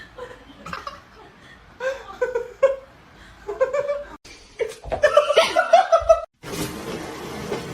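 People laughing in short bursts, building to a loud run of laughter, then a steady hiss near the end.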